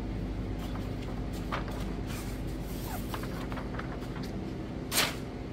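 Steady low hum of shop air conditioning, with a few faint rustles and one louder, sharp rustle near the end as the paper backing of a vinyl boat wrap is peeled off.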